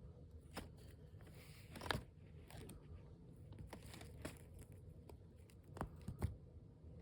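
A cough drop being batted about by a cat: scattered light clicks and taps, the loudest about two seconds in and a pair close together near the end.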